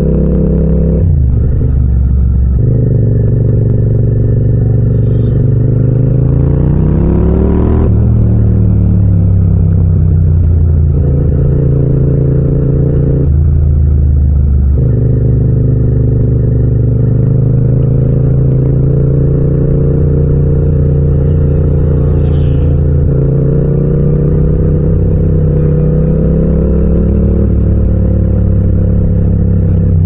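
Yamaha MT-07's 689 cc parallel-twin engine under way, recorded without wind noise. It pulls steadily, with the revs climbing about six to eight seconds in and then breaking off as it shifts. The note drops back briefly twice, near the start and about halfway through, as the throttle is rolled off.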